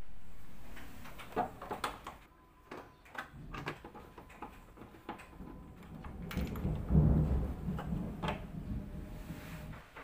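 Screwdriver work and hands handling the plastic control-panel housing of a Polytron top-loading washing machine: a run of clicks and small knocks, with a louder low rumble and knocking about seven seconds in.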